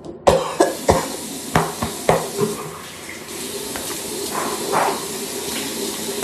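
A tap runs into a sink, a steady hiss that starts suddenly just after the start. Over it a person spits out a mouthful of toothpaste foam, with several sharp spits and splashes in the first few seconds.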